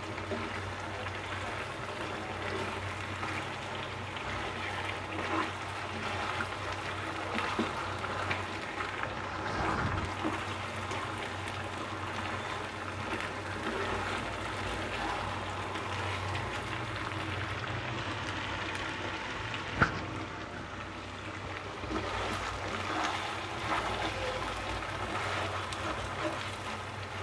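Chicken pieces frying in spiced masala in a non-stick pan, a steady sizzle, with the spatula scraping and clicking against the pan now and then and one sharp knock about twenty seconds in.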